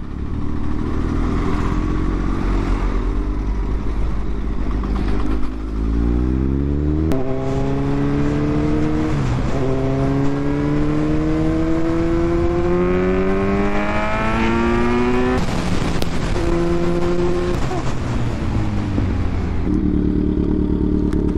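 Kawasaki Z900 inline-four engine under way with wind noise. Its pitch climbs steadily through the middle, with a few short dips at gear changes. It then drops lower and steadies as the bike slows to idle near the end.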